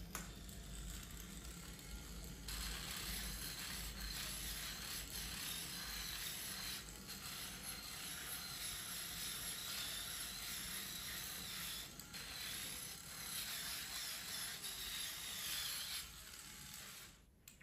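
Small motor of a rechargeable electric foot callus remover running steadily. It gets louder about two seconds in and stops shortly before the end.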